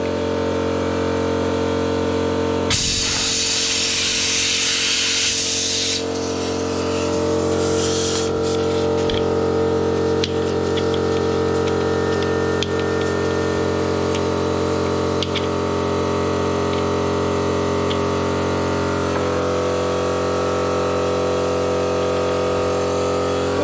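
Air compressor running with a steady motor hum while a motorcycle tyre is inflated through the hose at the valve, with a loud hiss of rushing air from about three to six seconds in and a shorter one near eight seconds.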